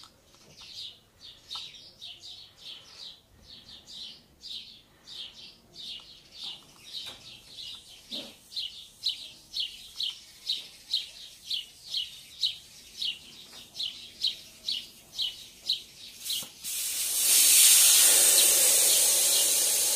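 A repeated high bird chirp, about two a second, then a click and a loud hiss of air rushing out of a motorcycle tyre's valve as the valve core comes out, deflating the tyre; the hiss slowly weakens.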